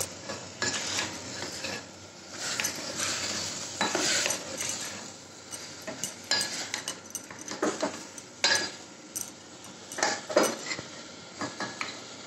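Steel spoon stirring and scraping mutton keema inside a metal pressure cooker, with irregular clinks against the pot's sides over sizzling.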